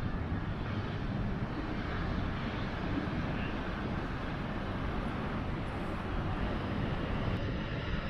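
Steady rushing of ocean surf breaking on a rocky shore, mixed with wind on the microphone.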